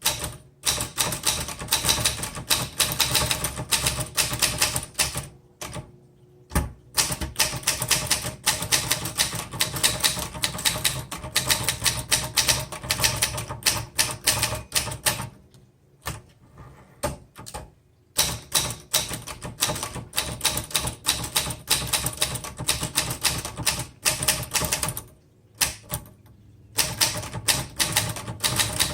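Olivetti-Underwood 21 manual typewriter being typed on fast: a dense clatter of type bars striking, broken by a few short pauses.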